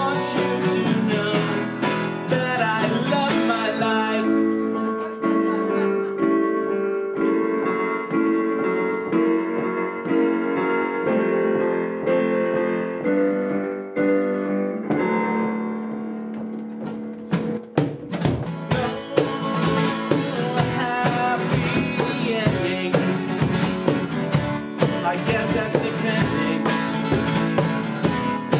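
A live band playing a song on guitars and keyboard, with cajon. About four seconds in, the percussion drops out, leaving held chords. It comes back in with the full band at about seventeen seconds.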